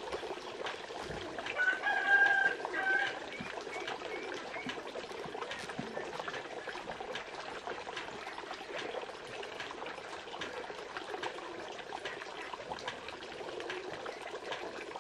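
A rooster crows once, about one and a half seconds in, in a call lasting about a second and a half with a short break near its end. Steady background noise runs underneath.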